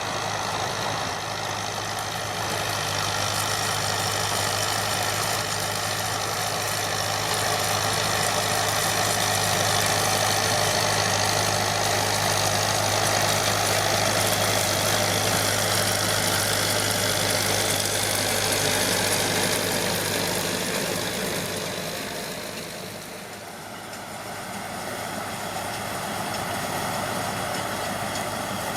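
John Deere 5720 diesel tractor running steadily with a Feraboli round baler working behind it: a constant engine hum under a broad mechanical rattle and hiss. The sound briefly fades about three-quarters of the way through, then comes back.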